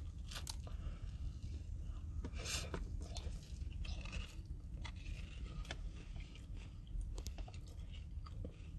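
A person biting into and chewing a soft chocolate cookie with cream cheese frosting, close to the microphone, with scattered small wet mouth clicks and crunches.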